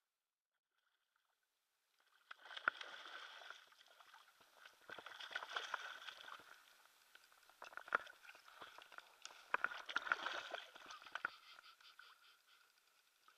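Large hooked trout thrashing and splashing at the water's surface as it is landed by hand, in repeated bursts with sharp slaps, starting about two seconds in and dying away near the end.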